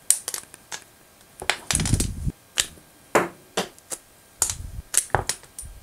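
Lego-type plastic bricks being pried off a silicone mold box and dropped onto a table: a string of sharp, irregular plastic clicks and clacks, with a fuller clatter about two seconds in.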